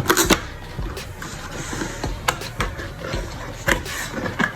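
Camera box being opened and its cardboard and paper packaging handled: rustling with scattered taps and knocks.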